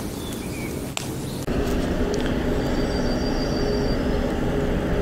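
Steady engine drone of a passing river vessel, with a held low hum, starting abruptly about a second and a half in; before it, a faint background with a couple of short bird chirps.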